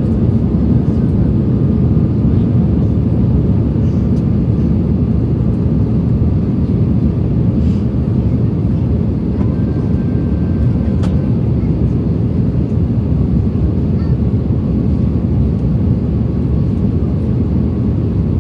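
Airbus A321 cabin noise: a steady rumble of the jet engines and airflow, with a faint steady whine above it.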